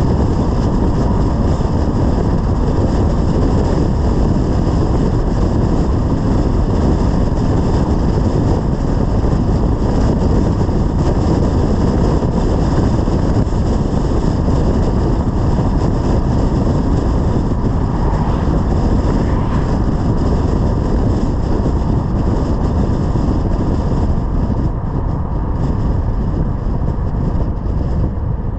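Steady wind and road noise of a BMW 330i driving at speed, the wind rushing over the camera's microphone. It eases slightly near the end.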